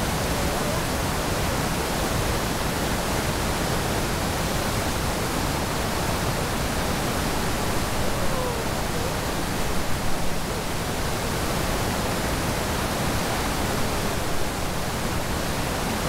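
Keila Falls, a broad river waterfall partly iced over, giving a steady dense rush of falling water.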